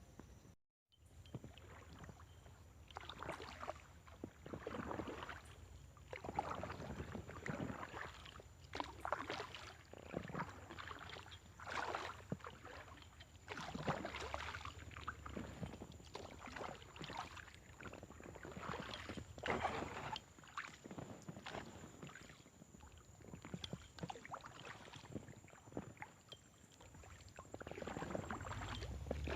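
Kayak paddle strokes dipping and pulling through water, a whooshing splash every second or two.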